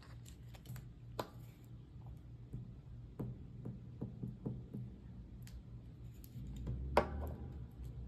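Light, uneven taps and rustles of paper pieces being handled and laid onto a spiral-bound journal page, with one sharper click about seven seconds in, over a low steady hum.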